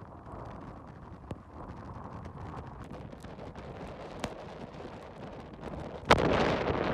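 Hurricane wind and rain buffeting a phone's microphone, a steady rushing noise scattered with sharp ticks. About six seconds in it turns suddenly into a much louder rush of noise on the microphone.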